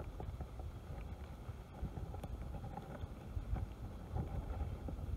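Wind buffeting the microphone as an uneven low rumble, with a few faint clicks.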